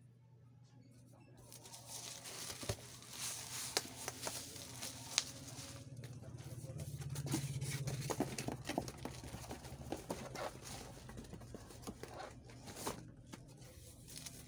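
Cardboard box flaps, inserts and plastic wrap being handled and shifted while unpacking a shipping box: rustling and crinkling with scattered sharp clicks and crackles, beginning about a second and a half in, with a heavier scraping stretch near the middle.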